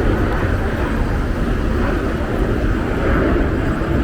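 Steady rumble of city street traffic: engines and tyres running continuously, with no single event standing out.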